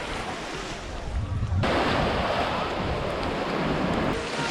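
Sea surf washing onto a beach, with wind buffeting the microphone; the noise jumps louder about one and a half seconds in.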